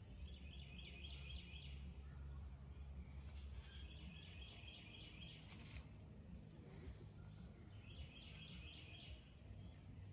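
A small animal's high, fast-pulsed trill, heard three times and each lasting about two seconds, over a faint steady low rumble, with one brief sharp click a little past halfway.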